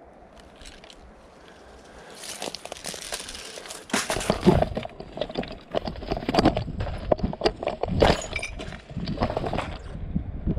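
Footsteps crunching and scuffing over dry leaves and broken brick rubble, with gear rustling, getting louder about four seconds in.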